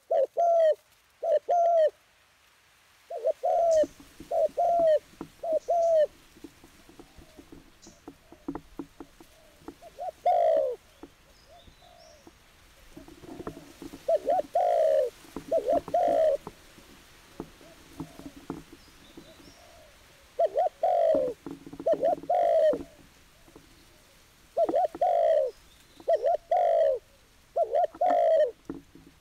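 Dove cooing: loud, short coos repeated in runs of two to four every few seconds, with faint rustling and clicks between them.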